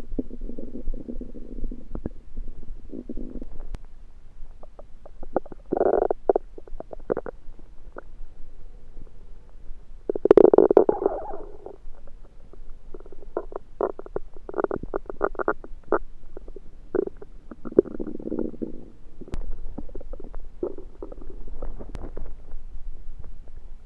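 Human stomach rumbling and gurgling in irregular bouts, with bubbly crackles between the longer growls and the loudest gurgle about ten seconds in. The churning is the belly's reaction to food its owner thinks was undercooked.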